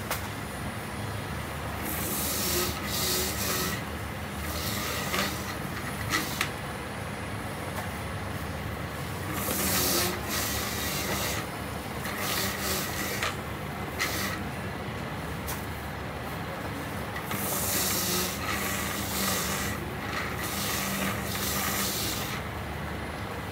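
Electric citrus juicer's motor running steadily. Each time an orange half is pressed onto the spinning reamer there is a rasping grind, repeated every few seconds.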